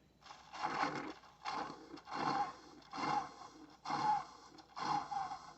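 Tastyle single-serve coffee maker starting its brew cycle, its heater pushing water through in a run of noisy hissing bursts, about one a second, as the water first heats.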